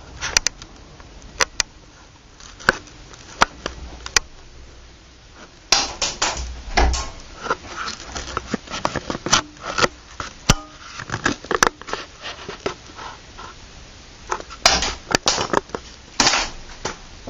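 Sporadic sharp cracks and clicks of airsoft pistol shots and plastic BBs striking hard surfaces, with a few short bursts of shuffling and handling noise around the middle and near the end.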